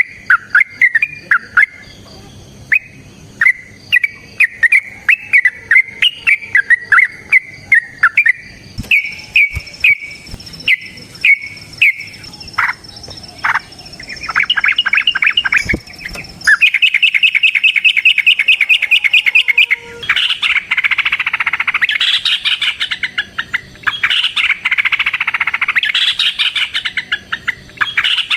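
Yellow-vented bulbul (trucukan) calling loudly: a string of short chirps at about the same pitch, then from a little past the middle a fast, even trill that breaks into dense, rapid chattering.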